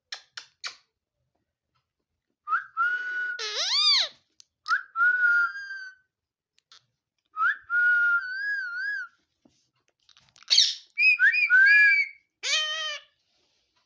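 Ringneck parrot whistling and chattering: several bursts of warbling whistled notes, some wavering and one sweeping up then down, with a few short clicks near the start.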